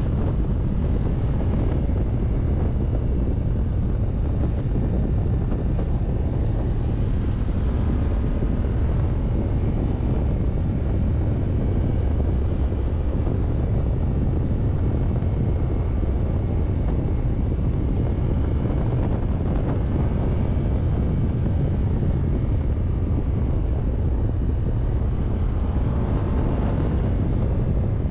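Ducati Diavel 1260 S's 1262 cc Testastretta V-twin engine running at a steady cruise on the open road, mixed with a heavy low rumble of wind buffeting the GoPro microphone.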